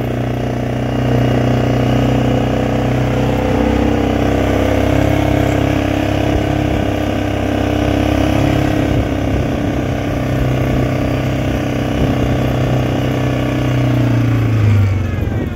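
Four-wheeler (ATV) engine running steadily under way, a droning engine note that holds fairly even and drops in pitch near the end as the machine slows.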